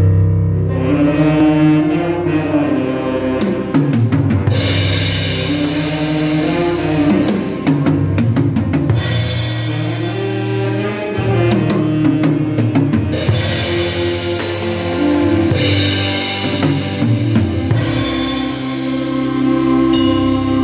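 Drum kit played with sticks in a live worship band: kick, snare and cymbal strikes over held bass notes and chords, with no singing.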